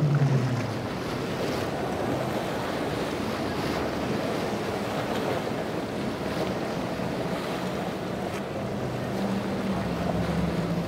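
Speedboat outboard engines passing at speed. The drone falls in pitch at the start, then rushing water and wind on the microphone take over, and near the end the drone of an MTI's quad Mercury 450R outboards comes back.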